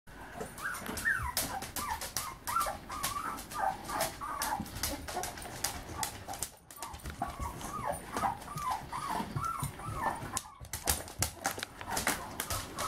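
A 16-day-old Siberian Husky puppy makes many short, high squeaks and whimpers while eating from a stainless steel bowl of dry dog biscuits. Rapid clicks and crunches come from the kibble rattling against the metal bowl, with two brief pauses partway through.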